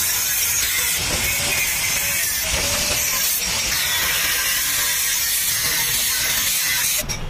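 Angle grinder's disc cutting into a motorcycle's steel chassis, a steady harsh grinding hiss that stops suddenly near the end.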